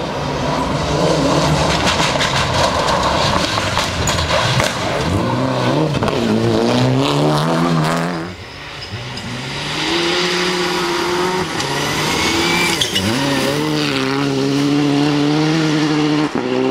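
Rally car engines at full throttle. A Mitsubishi Lancer Evolution revs hard and climbs in pitch as it accelerates. After a sudden cut, another rally car pulls through the gears, its pitch dipping briefly at each upshift.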